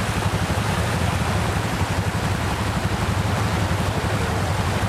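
An ATV engine running steadily, its low pulsing hum under a constant hiss.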